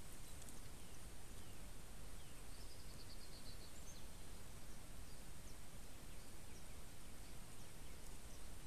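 Steady outdoor background noise with faint bird calls: a short, quick high trill about two and a half seconds in and a few scattered chirps.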